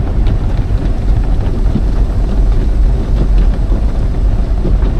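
Water jets of an automatic car wash spraying against the car's body, heard from inside the cabin: a loud, steady rushing noise, heavy at the low end.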